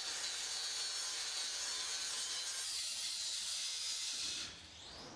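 Angle grinder cutting metal: a steady, high-pitched grinding that stops about four and a half seconds in.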